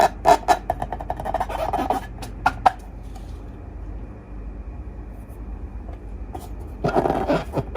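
Slime being squished and kneaded by hand: a fast run of wet clicks and crackles, then a few seconds with only faint hiss, then the squishing starts again near the end.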